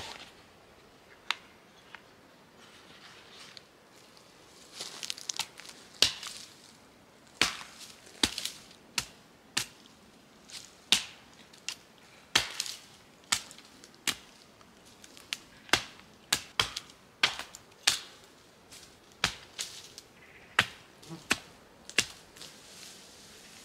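Hatchet blows chopping into a leaning dead pine trunk and snapping off its branches: sharp, irregular chops about one a second, beginning about six seconds in after some rustling of branches.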